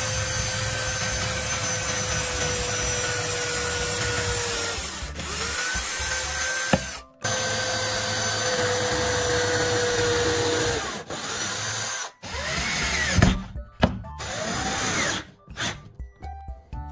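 Electric drill boring through PVC pipe into wood in two long, steady runs, each ending as the motor winds down. Then several short bursts in which the motor speeds up and slows, driving a screw into the pipe.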